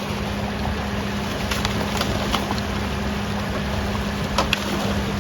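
An engine running steadily at idle with a constant hum, and a few short sharp clicks or knocks over it.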